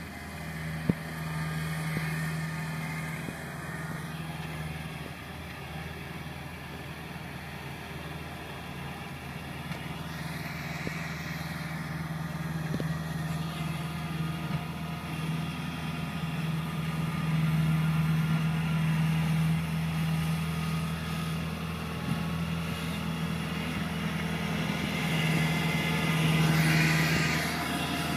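Kubota tracked combine harvester's diesel engine running steadily with a low hum as the machine drives through a muddy paddy. It grows louder through the second half as it comes closer.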